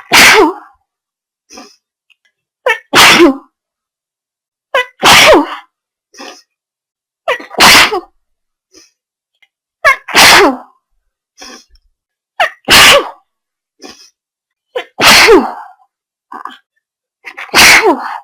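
A person sneezing hard over and over, eight loud sneezes about every two and a half seconds, each with a short lead-in breath just before it.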